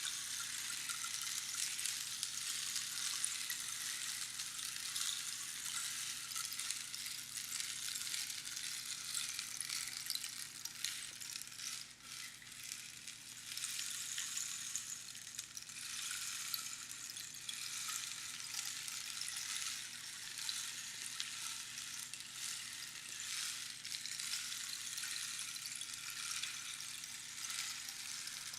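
Rainstick: its filling trickles down past the pins inside the hollow tube, making a continuous fine pattering hiss like falling rain, which dips briefly about twelve seconds in.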